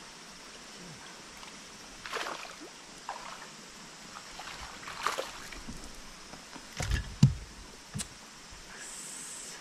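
Handling noise of bass fishing from a boat's front deck: a few soft swishes over a steady water-and-air hiss, two heavy thumps on the deck about seven seconds in, and a short tongue-click "tsk" about a second later.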